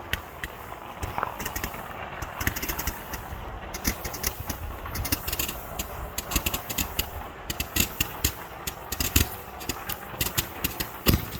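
A ground firework crackling, a fast, irregular string of sharp pops and cracks that grows denser, with the loudest cracks near the end.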